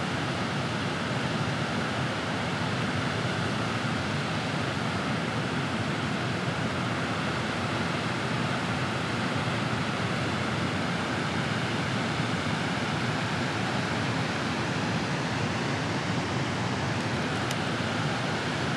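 Steady rush of water pouring through a dam's open spillway gates and churning in the white-water tailrace below.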